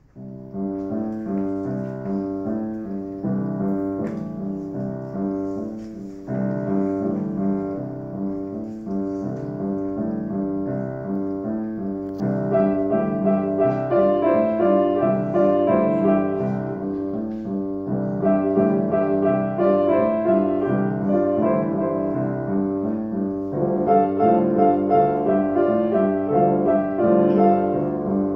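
Piano duet played four hands by two children on a grand piano: a steady run of struck notes in short phrases, growing louder about twelve seconds in.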